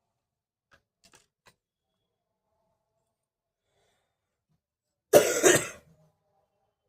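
A person coughing, two quick coughs in a row about five seconds in, after a few faint clicks.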